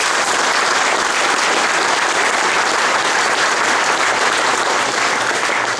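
Audience applauding steadily, breaking off near the end.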